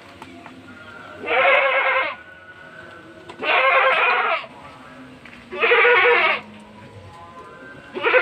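Goats bleating: three wavering calls of about a second each, a couple of seconds apart, with a fourth beginning near the end.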